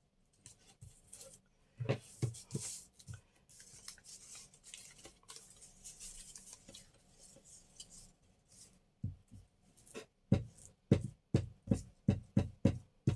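Paper being handled with soft rustles, then, about nine seconds in, a quick run of sharp snips, about two to three a second: scissors cutting paper.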